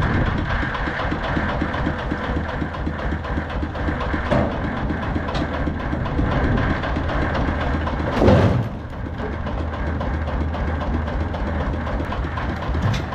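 Audi A6 car engine running steadily at idle, with one loud, quickly falling sound about eight seconds in.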